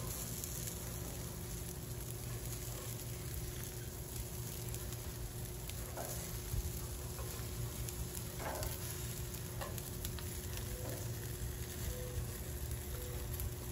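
Chicken drumsticks sizzling on a hot gas grill's grates as they are lifted off with metal tongs, with a few faint clicks of the tongs through the middle.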